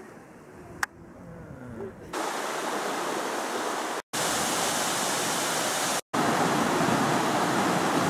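Rushing water from small rocky creek cascades: a steady, loud hiss that starts about two seconds in and cuts off abruptly twice for an instant. Before it is a quieter stretch of outdoor background with a single sharp click about a second in.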